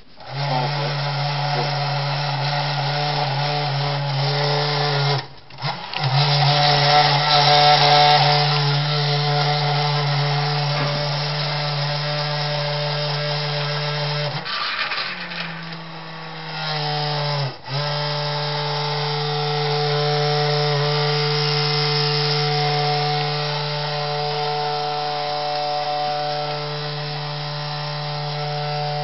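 Electric spindle milkshake mixer running loud, its motor humming steadily as the spinning agitator churns the shake in a steel cup. It cuts out briefly about five seconds in and again a little past halfway, and its speed shifts slightly just before the second stop.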